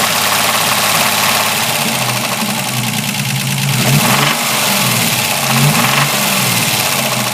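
Ford Capri 2.8i's V6 engine running, with the revs rising and falling briefly twice, about four and six seconds in. A strong hiss sits over the engine note. The car has a grinding noise that its owner is trying to pin down.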